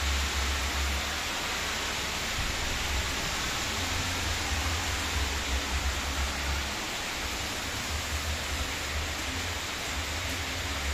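Heavy rain falling steadily, a continuous even hiss, with a low rumble that comes and goes.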